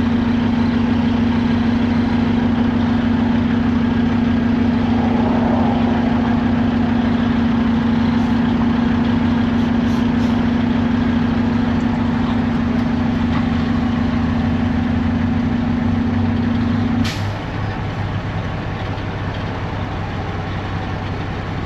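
Truck engine idling, heard from inside the cab, with a steady hum. About 17 seconds in, the higher part of the hum cuts off suddenly with a click.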